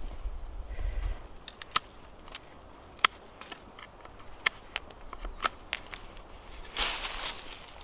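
A blade carving a wooden stick by hand: a few sharp, isolated clicks as it bites into the wood, then a longer scraping stroke near the end.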